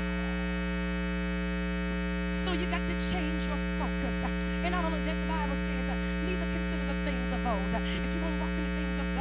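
Steady electrical mains hum from the sound system. From about two seconds in, faint voices come and go beneath it.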